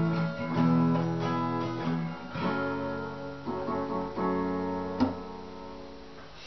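Acoustic guitar strumming chords, with a last strummed chord about five seconds in that rings out and fades away: the close of the song.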